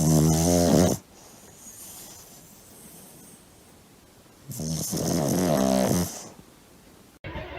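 A dog snoring: two loud snores, a short one at the start and a longer one about four and a half seconds in.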